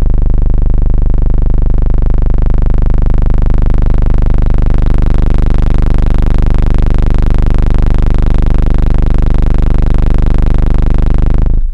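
Car subwoofers playing a single steady low bass tone at very high volume, cutting off suddenly near the end. The tone is pulling the car's electrical voltage down hard.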